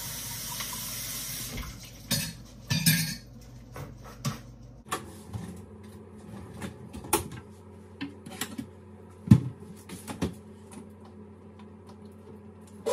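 Water running briefly from a kitchen tap, then scattered clinks and knocks of dishes, pots and utensils being handled, with one louder knock about nine seconds in.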